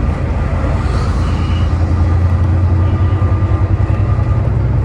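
Bus running in traffic, heard from inside as a steady low drone that grows louder from about a second in, with faint thin high tones over it. The bus is making what its rider calls an awful metallic sound.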